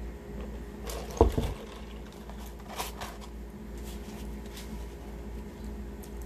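A single thump a little over a second in, then soft rustling and clicks from a fast-food paper wrapper as fries are picked from it, over a steady low hum.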